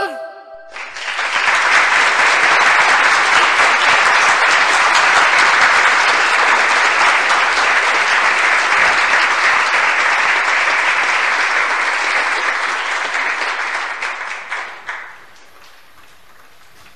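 Crowd applauding: a long round of clapping that starts about a second in and dies away about fifteen seconds in.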